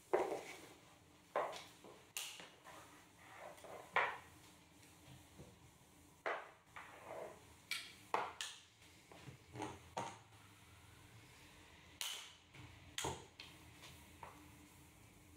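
Flat mop being pushed and swept back and forth across a hard floor: irregular swishes of the mop pad and light clacks and knocks as the mop head is turned and the handle swivels, about one every second or so.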